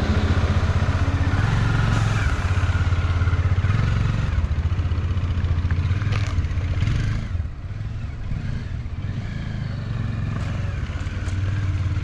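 Motorcycle engine running at a steady cruise, with an even hiss over it; it eases off a little about halfway through.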